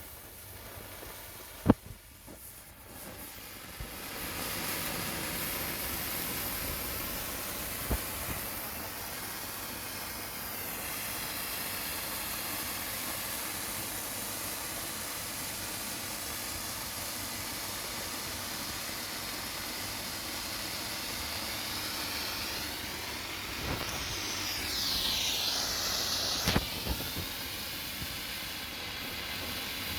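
Weco red pyrotechnic hand flare: a sharp snap about two seconds in, then the flare burning with a steady hiss from about four seconds on, with a few small crackles near the end.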